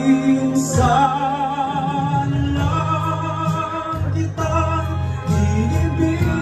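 A male singer sings live into a microphone over an instrumental backing track, holding long notes with vibrato.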